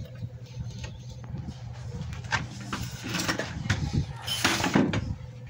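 Handling noise from a wooden rifle stock being picked up and moved about on a wooden workbench: scattered knocks and clicks, busier in the second half, over a steady low hum.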